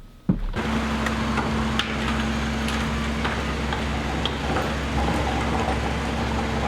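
Steady car engine and road noise heard from inside the car, a low even hum that begins abruptly about half a second in, right after a short thump.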